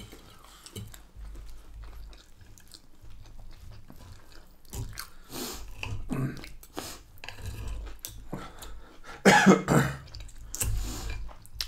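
Close-miked eating: chewing and mouth sounds, with knife and fork cutting steak on a ceramic plate. A louder, harsher burst about nine seconds in stands out above the rest.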